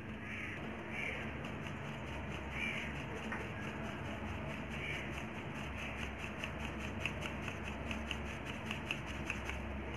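A hand tapping and shaking a plastic sieve to sift flour, cocoa powder and sugar into a steel bowl, with a run of quick, even taps, about three or four a second, in the second half.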